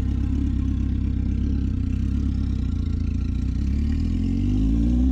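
Kawasaki ZX10 sport bike's inline-four engine running at a steady idle, then revving up near the end with a rising pitch.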